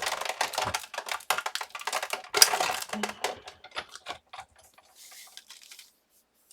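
Cardstock and die-cut paper pieces being handled: rapid, irregular clicks and crackles for about four seconds, then fading out.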